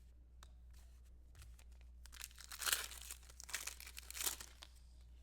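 A trading-card pack wrapper being torn open, with crinkling and tearing in a few rustling bursts in the second half and a few light clicks before them.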